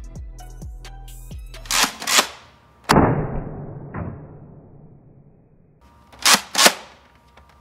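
Background music with a beat that stops about two seconds in, then a run of sudden loud bangs like gunshot sound effects: a quick pair, one big bang that rings out slowly, another a second later, and a close pair near the end.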